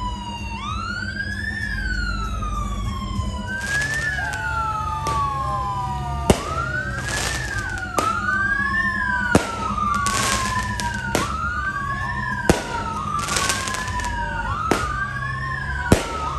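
Police siren wailing in a repeating sweep, a quick rise and a slower fall about every second and a half. From about six seconds in, sharp short pops recur every second or two, with bursts of hiss between them.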